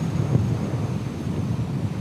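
Wind buffeting the microphone of a Kawasaki VN1500 Nomad cruiser motorcycle ridden at road speed. The bike's V-twin engine is largely buried under the low rumble of the wind.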